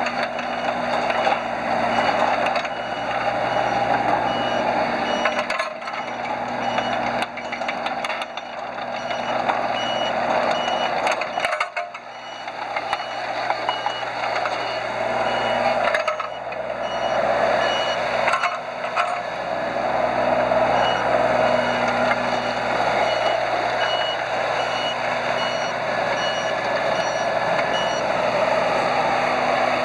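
John Deere 17ZTS mini excavator running and tracking, its engine working under load, with its travel alarm sounding a steady series of short beeps.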